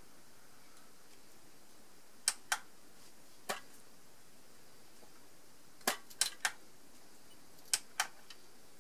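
Eight sharp clicks in small groups: two close together, one alone, a quick run of three, then two more, over a faint steady hiss.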